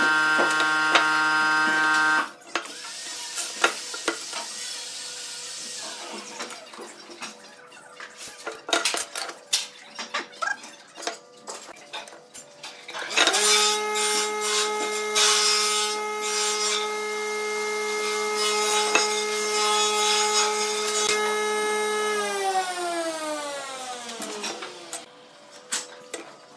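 Woodworking tool sounds. An electric power tool's motor runs and cuts off about two seconds in, followed by hand work on wood with scraping and clicks. About 13 seconds in the motor starts again, runs steadily, then is switched off about 22 seconds in, its pitch falling as it spins down.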